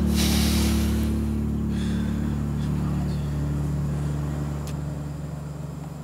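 Tense background score: low, steadily held drone notes, with a brief airy swell at the start, fading gradually toward the end.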